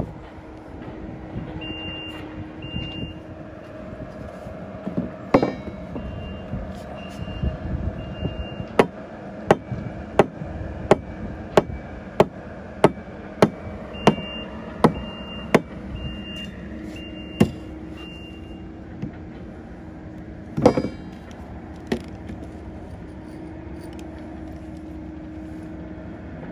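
Construction machinery engine running steadily, with short high beeps coming and going. Through the middle, a run of about a dozen sharp, evenly spaced knocks, roughly one and a half a second, like hammer blows on timber.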